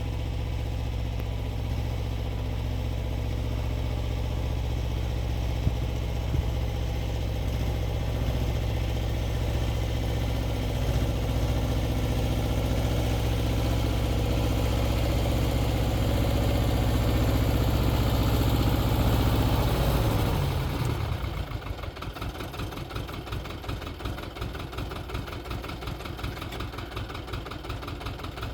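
Xingtai 220 tractor's diesel engine running steadily under load while driving a rotary tiller, then about 20 seconds in dropping off suddenly to a quieter, evenly pulsing idle.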